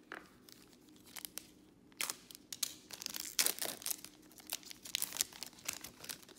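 Foil wrapper of a Panini Select baseball card pack being torn open and crinkled by hand. A single click at the start, then a run of sharp crackles from about two seconds in.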